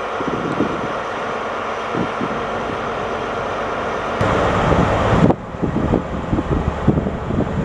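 Class 43 HST power car's diesel engine running steadily at idle in the station. After a sudden cut about five seconds in, wind buffets the microphone while an HST draws into the platform.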